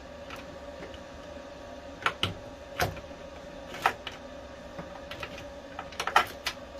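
Scattered light clicks and taps, a few single ones and then a quick cluster near the end, from cables and plastic fittings being handled while supply cables are fed through a hole.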